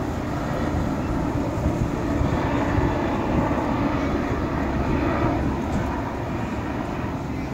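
Street traffic ambience: a low rumble of a passing vehicle that swells over the middle of the stretch and then eases off.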